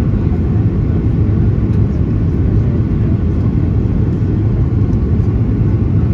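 Steady low rumble of cabin noise inside a Boeing 737-800 airliner: engine and air noise heard from a seat in the rear cabin, unchanging throughout.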